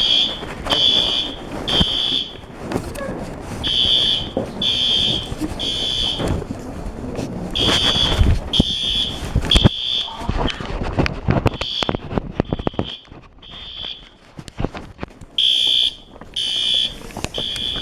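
School fire alarm horns (System Sensor SpectrAlert Advance) sounding the temporal-three evacuation pattern: three short, high-pitched beeps, a pause, then three more, repeating. Rustling and knocks of handling noise run underneath.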